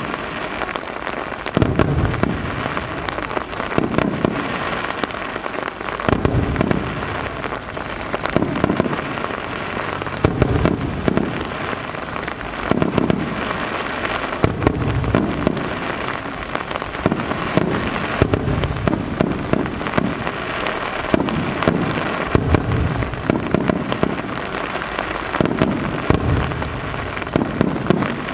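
Steady hiss of heavy rain close to the microphone, with fireworks booming over it every one to two seconds.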